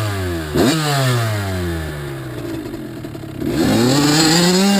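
Kawasaki KX85 two-stroke single-cylinder dirt bike engine revving: a quick blip about half a second in, the revs falling away, then a climb to a high rev held for over a second near the end.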